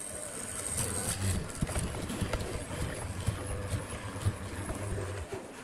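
Cast-iron cross-slide drill press vise being cranked by hand: irregular light metallic clicks and rattles from the handle and lead screw as the table moves.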